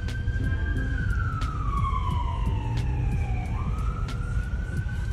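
Emergency vehicle siren wailing: it holds a high pitch, slides slowly down over a couple of seconds, then sweeps quickly back up near the end.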